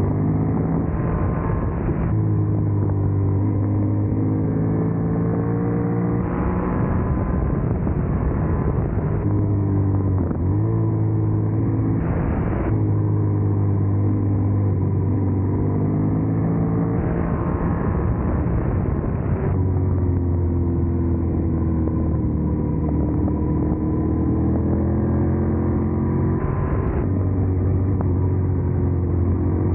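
Yamaha MT-07's 689 cc parallel-twin engine heard on board while riding. The engine note rises and falls again and again as the throttle is opened and eased through bends, with a few sudden pitch drops, over a steady rush of wind and road noise.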